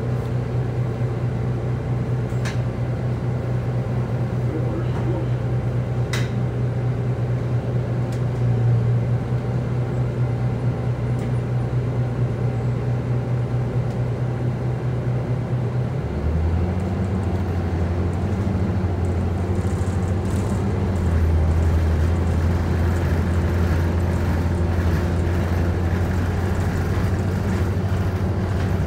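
Orion VII city bus heard from inside the cabin, its engine idling steadily while stopped, then changing note about halfway through as the bus pulls away and growing louder a few seconds later under acceleration.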